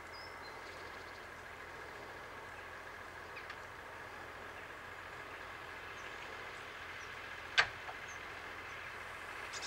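Faint steady hum, with one sharp click about seven and a half seconds in.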